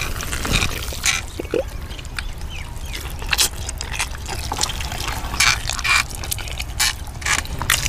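Close-up eating sounds as a man eats a whole fried fish with his hands: wet chewing and lip smacks, heard as irregular clicks over a steady low rumble.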